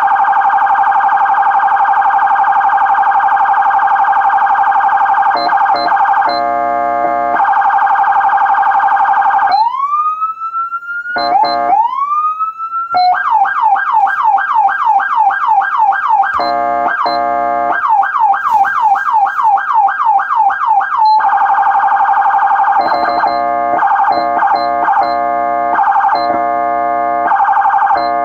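Federal Signal SmartSiren SS2000 electronic siren switched through its tones: first the very fast warbling priority tone, then a few seconds of the steady air-horn tone, two manual rising wails that climb and stop, a yelp of fast repeated sweeps about three or four a second with a short horn blast in the middle, and near the end the priority tone again broken by short horn blasts.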